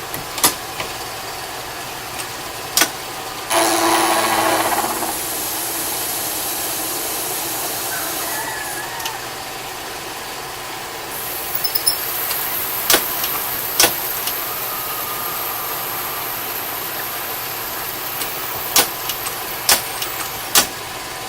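Wade turret lathe running through its cutting cycle on bar stock: a steady machine noise with a loud noisy stretch about three and a half seconds in lasting a second and a half, and sharp metallic clicks and clunks of the tooling and levers scattered throughout.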